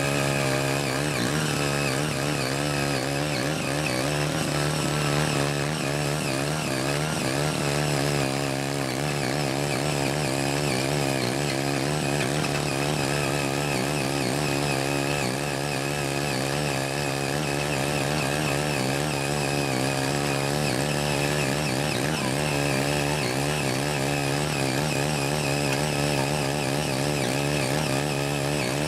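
Small engine of a CY80 foldable mini tiller running steadily at working speed while its eight rotary blades till unworked soil. The engine note wavers slightly up and down as the blades take the load.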